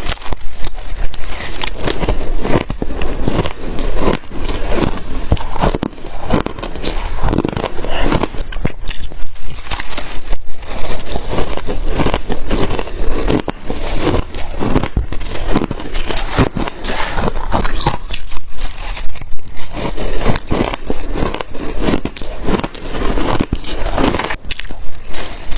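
Close-miked biting and crunching of shaved ice, a dense run of sharp crackling crunches with brief pauses between bites.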